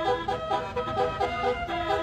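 Basuri telolet bus horn, a multi-tone electric air horn, playing a quick melody of short pitched notes over a low rumble.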